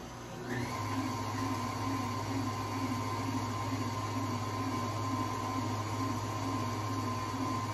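Electric stand mixer running, beating butter, cream cheese, lemon juice and vanilla into frosting: a steady motor hum with a regular pulse, picking up about half a second in.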